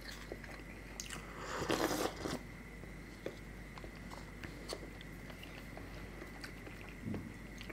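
Close-miked eating sounds: chewing and small mouth and handling clicks, with one louder noisy burst about two seconds in.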